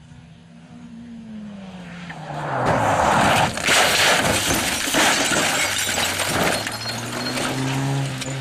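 Peugeot 309 rally car's engine note falling away, then a loud crash lasting several seconds as the car rolls over: a dense run of metal bangs, crunches and scraping. A car engine note comes back near the end.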